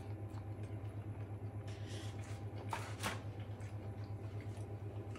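A steady low hum with a rapid, even pulse, with a couple of short clicks about three seconds in.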